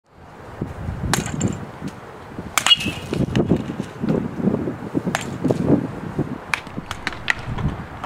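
Baseball bats striking balls in batting practice: a string of sharp cracks every second or two over an uneven low rumble. The loudest crack, about two and a half seconds in, rings with a metallic ping.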